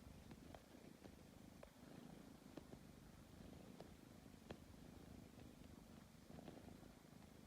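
Tabby cat purring softly, a low steady rumble, with a few faint light ticks scattered through it.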